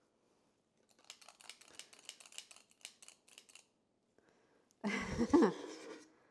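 A metal cookie scoop scraping and clicking against a stainless steel mixing bowl as the last of the batter is gathered: a quick run of small clicks and scrapes, then a louder clunk near the end.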